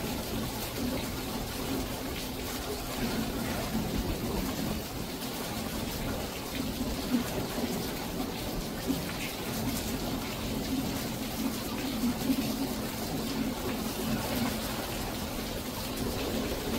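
Steady monsoon rain falling, an even hiss of drops with a couple of sharper drop hits around the middle and later on.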